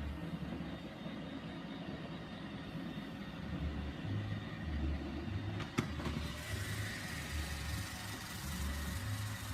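Robot vacuum running: a steady motor hum with hiss, a sharp click about six seconds in, and a louder hiss after it.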